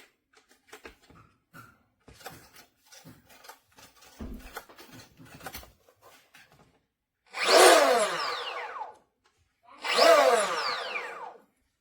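Light clicking and handling of plastic parts, then the RC boat's brushless motor given two short throttle blips, each a loud whine that falls in pitch as the motor spins down.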